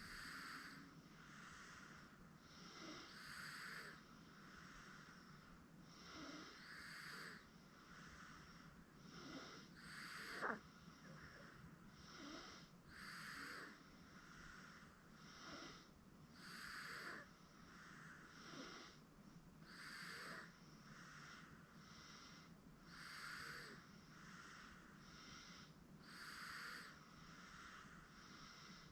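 Eight-month-old baby breathing faintly in her sleep with a light snore, slow and regular at about one breath every three seconds. A brief sharp squeak about ten seconds in.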